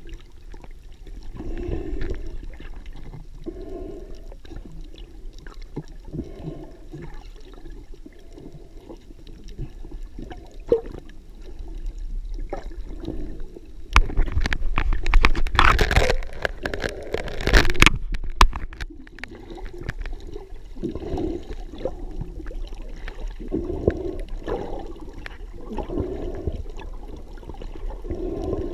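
Muffled underwater sound of snorkeling, heard through a waterproof camera housing just below the surface: a low water rush with a soft pulse about every two seconds. Louder crackling splashes come through about halfway in for a few seconds.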